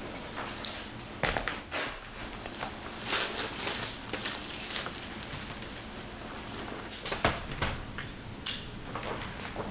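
Cardboard packaging of an acrylic paint set being slit open and handled with a folding knife: irregular crinkling, scraping and crackling with scattered sharp clicks. It is loudest about a second in and again around seven seconds in.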